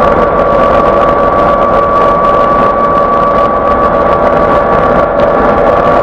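Quayside crane hoist lifting a slung bundle of pipes out of a ship's hold: a loud, steady machine hum with a constant high whine.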